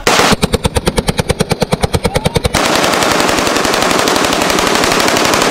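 Full-auto .223 rifle on an M16 machine-gun lower firing one long burst, about a dozen shots a second. After about two and a half seconds the separate shots blur into an unbroken, loud rattle.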